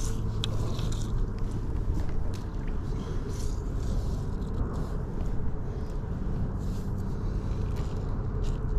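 Steady low rumble of road traffic crossing a bridge, with a few faint clicks and ticks over it.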